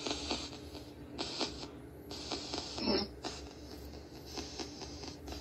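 Spirit box app on an Android tablet sweeping through its speaker: chopped bursts of static hiss switching on and off about every half second, with one short voice-like fragment about three seconds in.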